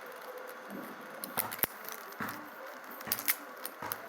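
Plastic Rubik's cube being turned by one hand: irregular clicks and clacks as the layers are twisted, with the sharpest ones in little clusters about a second and a half in and again just after three seconds.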